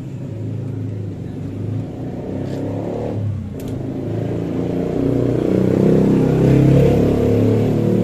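An engine running, its pitch wavering, getting louder from about five seconds in, with two light clicks near the middle.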